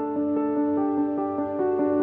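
Background music: a soft ambient keyboard piece, quick repeating notes over held tones.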